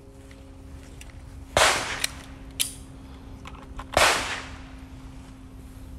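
Two pistol shots, about two and a half seconds apart, each a loud sharp crack with a short echo, and a fainter sharp crack between them.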